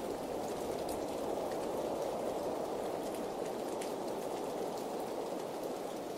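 Steady rainfall, an even wash of rain noise with faint scattered ticks of individual drops.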